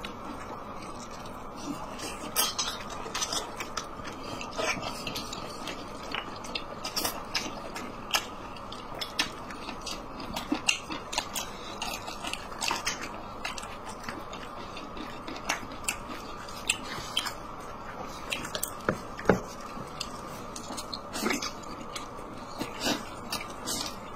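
Close-up mouth sounds of a person eating boiled dumplings: chewing, biting and wet lip smacks, coming as irregular clicks over a steady low hiss.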